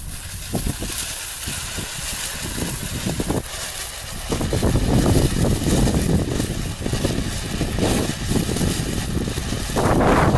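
Panda effect fountain firework (ground fountain) spraying sparks with a steady hiss, over low uneven rumbling. It grows louder about four seconds in as the spray builds.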